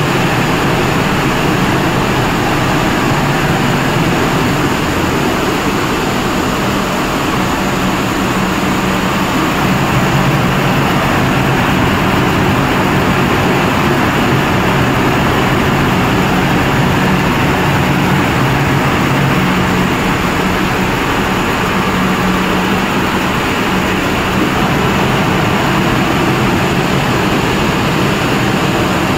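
Steady mechanical drone of a running snack-pellet production line's machinery, with a low hum that grows stronger partway through and eases off later.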